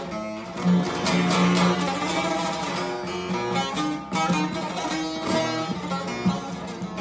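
Divan saz with a carved mulberry bowl being played: a fast strummed and picked melody over a steady low drone note.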